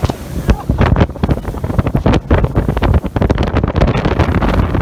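Wind buffeting the microphone in irregular gusts aboard an inflatable boat running across choppy water.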